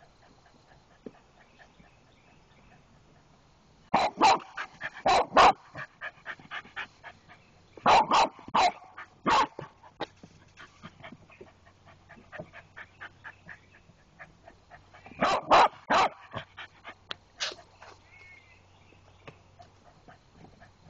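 Dog barking in three loud bouts of quick, sharp barks, about four seconds in, about eight seconds in and about fifteen seconds in, with quieter short yaps in between.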